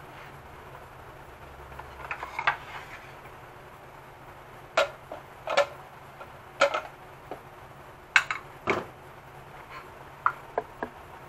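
Wooden cutting board being set down and shifted on a stone countertop: a series of separate light knocks and clatters, about one every second or so, starting about two seconds in.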